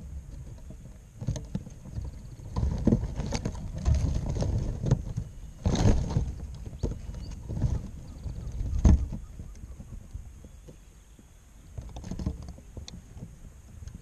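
Close-up irregular knocks, bumps and rustling as a spotted dove moves about and pecks right against the microphone inside a wire trap, with a few louder sharp knocks. A few faint short high calls sound in the background.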